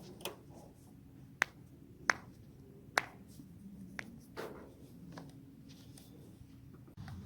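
A person's joints cracking: a series of about seven sharp pops, irregularly spaced. The loudest three come between about one and a half and three seconds in.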